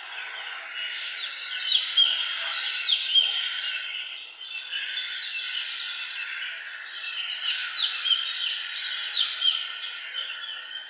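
Popcorn popping in hot oil in a lidded pan: a steady sizzling crackle with scattered sharp pops.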